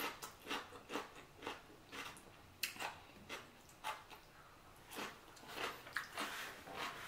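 A person chewing food close to the microphone: soft, wet mouth clicks and smacks about two a second.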